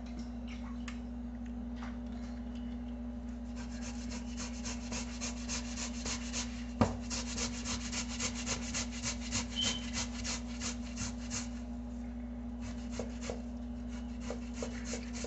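Boiled potato being grated by hand on a stainless steel box grater: rasping strokes that become quick and steady from about four seconds in, with a single sharp knock a little before seven seconds. The strokes stop after about eleven seconds, then a few lighter ones follow, over a steady low hum.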